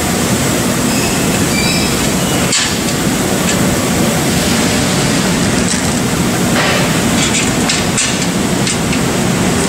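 Loud, steady drone of shop machinery, with a few light metallic clicks from a bolt being fitted to a fan's flange-type tail bearing: one about two and a half seconds in, and several more in the second half.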